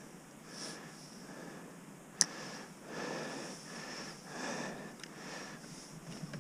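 A person breathing and sniffing close to the microphone, in soft swells about every second and a half, with one sharp click a little over two seconds in.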